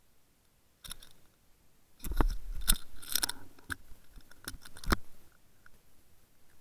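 Handling noise on the camera: crackly rubbing and knocks as it is moved against a fleece jacket, with a burst of rustling and a dull thump about two seconds in and a couple of sharper knocks near the end.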